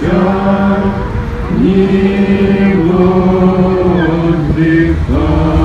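Orthodox worshippers chanting a prayer service in unison: long held notes on a few pitches that step up and down every second or two.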